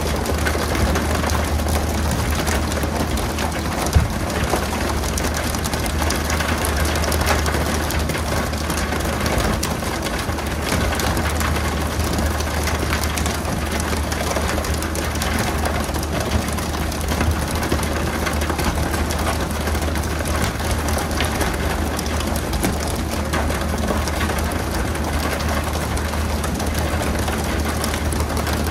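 Fishing boat engine running steadily, with a continuous patter of splashing water over it and one sharp knock about four seconds in.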